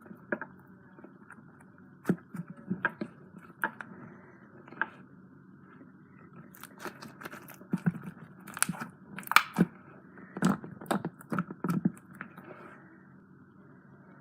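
Slime being squished and stretched by hand, giving off irregular sticky pops and crackles that come thickest in the middle.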